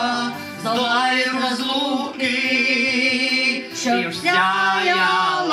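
Male vocal group singing a slow song, holding long sustained notes with short breaks between phrases.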